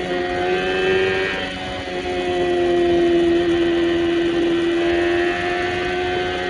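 Yamaha Fazer 600's inline-four engine running at steady, fairly high revs, its pitch drifting up and down slightly.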